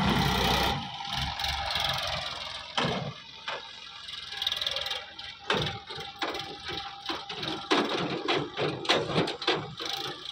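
Sonalika DI 750 RX tractor's diesel engine running as it pulls an empty tipping trailer over rough ground, heaviest in the first second, with many sharp knocks and rattles from the trailer that come thick and fast in the second half.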